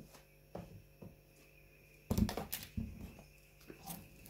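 A cardboard smartphone box being handled and set down on a wooden table: a few faint clicks, then a cluster of louder knocks about two seconds in, with a couple of lighter knocks after.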